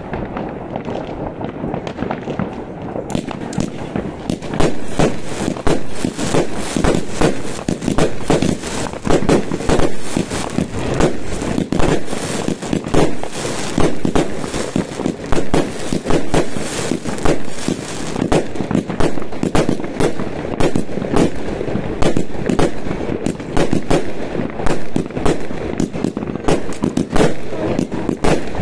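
Fireworks going off in a dense, continuous stream of overlapping cracks and bangs, growing thicker about three seconds in.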